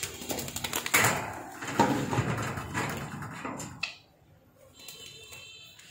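Quick clicks, taps and rattling from a wire pet cage being handled, densest for the first few seconds and ending in one sharp knock, after which it goes much quieter.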